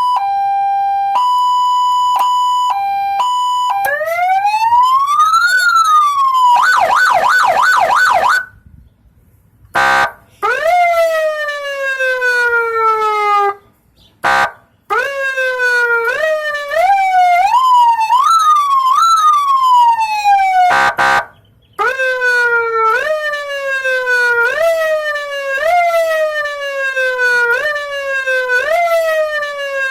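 Aftermarket electronic vehicle siren blaring through under-truck speakers, cycling through its tones. It opens with an alternating two-note hi-lo, then a single rising-and-falling wail and a fast warbling yelp. After a short pause come falling sweeps, and from about two-thirds of the way in the falling sweeps repeat roughly once a second, with brief breaks between patterns.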